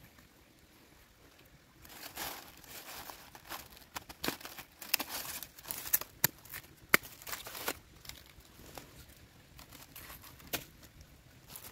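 Crinkly rustling of something being handled, starting about two seconds in and easing off near eight seconds, broken by several sharp snaps or clicks.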